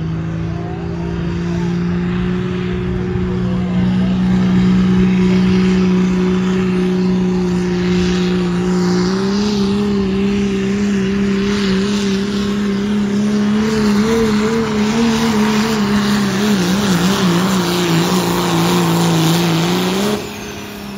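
Dodge Ram pickup's turbocharged Cummins diesel running flat out under load, dragging a pulling sled. The loud, steady engine note steps up in pitch about halfway through, wavers up and down over the last several seconds, then drops away suddenly just before the end as the pull finishes.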